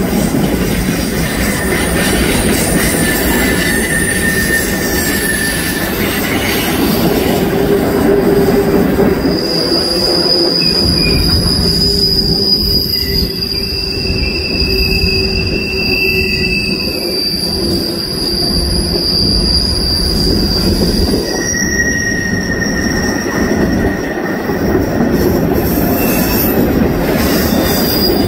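Freight cars of a CN manifest train, tank cars and covered hoppers, rolling past on a curve over a steady rumble of steel wheels on rail. The wheels squeal against the rail in steady high tones that come and go, with one long high squeal through the middle.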